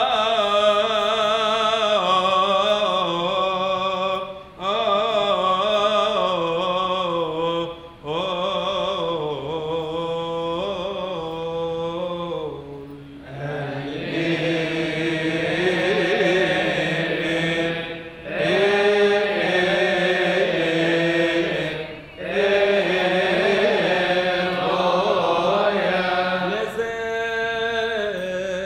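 Male voice chanting a Coptic liturgical hymn in long, drawn-out, ornamented phrases, with short breath breaks every four to five seconds.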